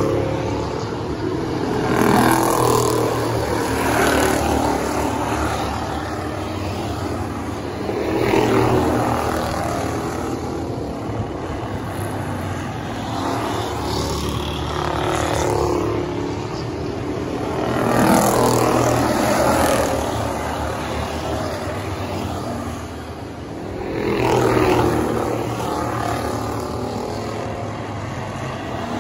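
Enduro stock cars racing around a paved oval, their engines swelling loud as each bunch of cars passes and then fading away, several times over, with a steady drone of the rest of the field between passes.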